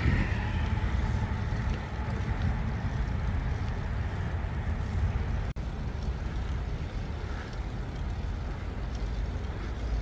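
Steady low rumble of wind on the microphone and tyre noise from a bicycle riding along a paved path. The sound cuts out for an instant about halfway through.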